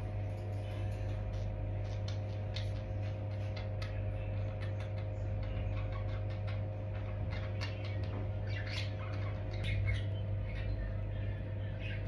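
Budgerigars chattering: many short scattered chirps and squeaks, busier in the second half, over a steady low hum.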